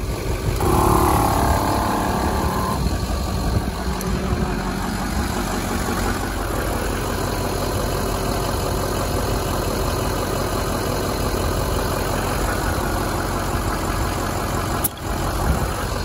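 Smittybilt 2781 12-volt portable air compressor running steadily under test, its electric motor and piston pump droning without a break.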